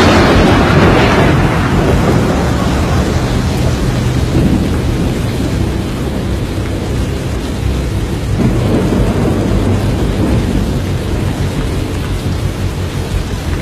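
Storm noise: a steady rush of heavy rain and wind with low rumbling thunder, loudest at the start and swelling again about eight seconds in.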